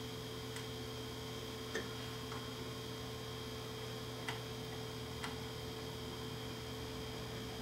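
Steady electrical mains hum with a thin high whine from powered-up bench electronics, broken by a handful of light clicks.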